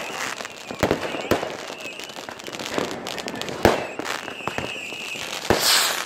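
Fireworks going off: aerial shells and firecrackers banging at irregular intervals, the strongest bangs about a second in and just before four seconds, over a steady crackle. A loud hissing rush comes shortly before the end.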